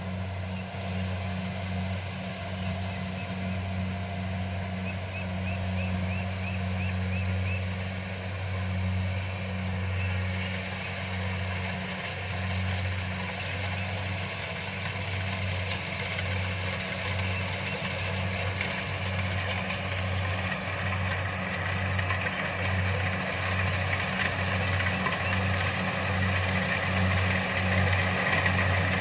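Kubota DC-70 combine harvester running steadily, a low engine hum with a choppy pulsing rhythm and a rising rattle of machinery growing a little louder near the end.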